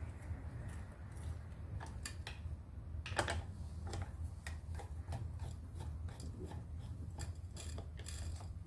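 Scattered light clicks and taps from hands working on a submersible pump's casing, with one sharper knock about three seconds in, over a steady low hum.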